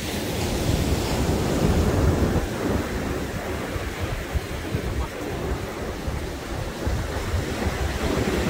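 Wind buffeting the microphone in uneven gusts over the steady rush of surf on a beach.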